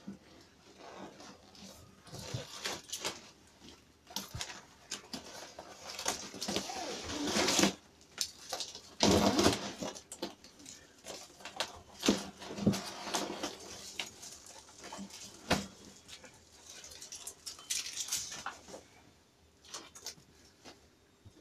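Plastic packing wrap being pulled off a box and crumpled by hand: irregular crinkling and rustling with a few sharp knocks.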